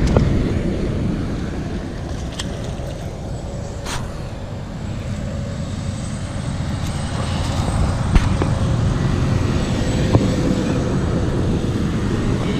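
Wind buffeting the camera microphone: a steady, fluttering low rumble. A few sharp clicks come through it.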